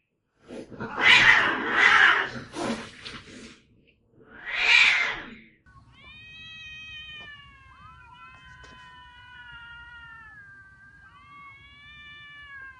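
Cats fighting: loud noisy hisses and spits for the first three seconds or so, another hiss about five seconds in, then one long wavering yowl that lasts about seven seconds.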